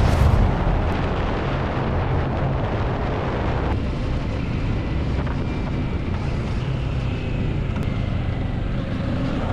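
Motorcycle riding along a road: engine and tyre rumble under heavy wind rush on the camera microphone, steady throughout and loudest in the first half-second.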